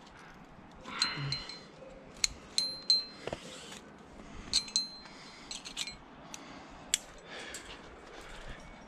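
Metal climbing gear clinking as a cam is placed in a crack and the rope is clipped to it: aluminium carabiners and cams on the rack knock together in a series of sharp, short-ringing clinks, with soft rustling between them.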